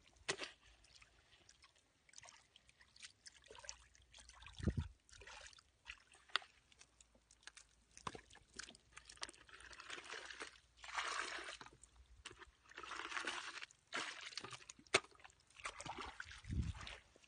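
Muddy water pouring and splashing from a plastic bucket, with scattered small knocks and squelches in wet mud. There are two longer pours about two-thirds of the way through.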